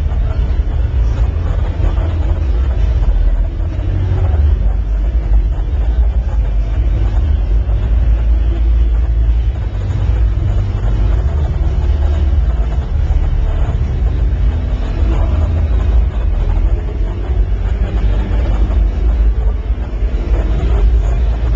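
Crowd ambience in a large exhibition hall: a steady, loud low rumble under a faint murmur of many people.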